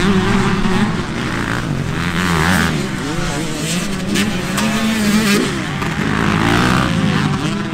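Several motocross bikes revving hard through a corner on a dirt track, their engine notes rising and falling and overlapping as they accelerate and shift.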